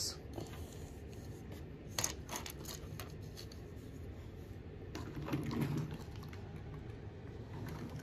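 A few light, sharp clicks of small pebbles and stones knocking together and against a toy crane's plastic bucket on a play table, over quiet room noise.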